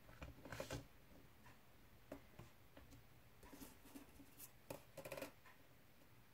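Soft rustles, slides and light taps of card paper being handled on a tabletop, with a few small clicks as a circular cutting die is picked up and laid on the paper.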